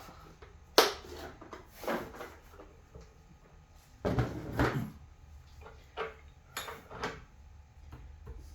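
Tools or parts being handled and set down on a workbench: a series of irregular knocks and clatters. The loudest comes about a second in, with a cluster of clatter around four to five seconds in.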